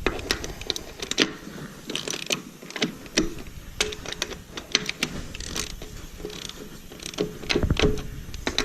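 Hand ratchet clicking in irregular runs, with sharp metal clinks, as lug nuts are run down onto the wheel studs.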